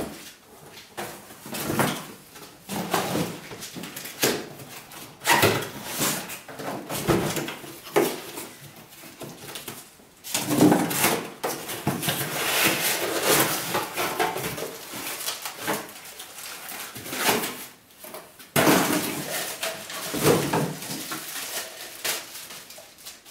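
Cardboard packaging and plastic wrapping rustling and crinkling by hand while a blender jar is unpacked, with irregular knocks and scrapes throughout.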